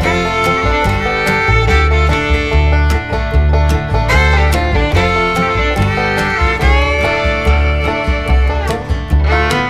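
Background music: an upbeat instrumental with a steady, even beat.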